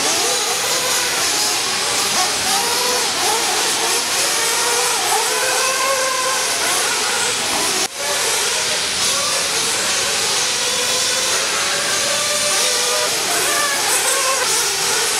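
Several radio-control off-road race cars running on a dirt track: a steady hiss under motor whine that rises and falls in pitch as the cars accelerate and brake, broken by a momentary drop about halfway through.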